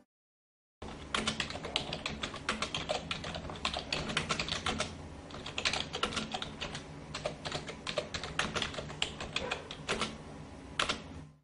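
Computer keyboard typing sound effect: quick, uneven key clicks starting just under a second in, with a couple of brief lulls, stopping shortly before the end.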